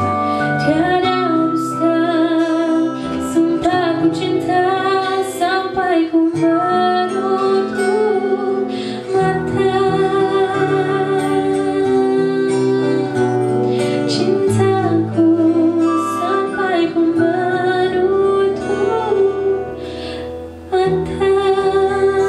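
A woman singing a slow melody with held, wavering notes, accompanied by two strummed acoustic guitars.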